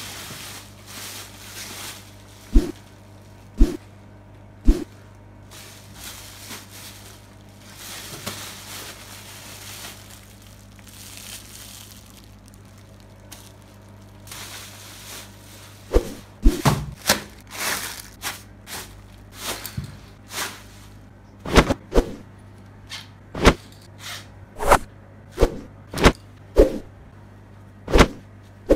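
Plastic bubble-wrap packaging rustling and crinkling as it is handled, with three sharp knocks a few seconds in and a quick run of a dozen or so sharp knocks in the second half. A low steady hum sits underneath.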